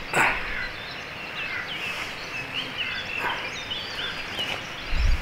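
A hooked tench splashing at the pond's surface while being played: one loud splash just after the start and a smaller one about three seconds in, with birds chirping throughout. A low thump near the end.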